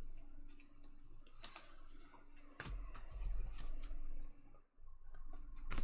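Baseball trading cards being handled and flipped through by hand: a scattering of irregular sharp clicks and snaps of card stock with soft rustling, the sharpest click near the end.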